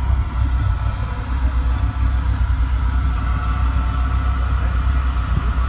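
Swamp buggy engine idling steadily, a low, even rumble with no revving, while hooked to a tow strap.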